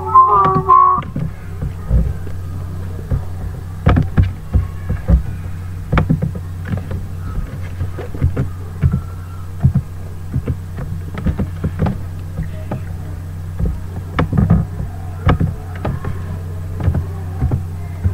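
Steady low electrical hum with irregular sharp clicks and knocks scattered throughout. A short whistled tune trails off in the first second.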